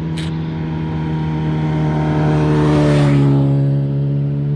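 Motorbike passing by on the road, its engine growing louder to a peak about three seconds in, the pitch dropping as it goes past.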